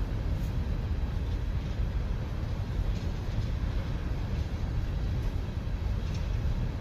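Steady low rumble of a train rolling past, with a few faint scattered clicks.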